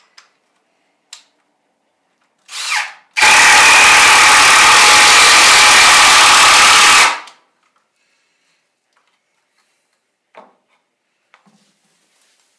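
Cordless drill driving a screw into a wooden board: a brief trigger blip, then about four seconds of steady motor whine that stops suddenly, followed by a few faint clicks.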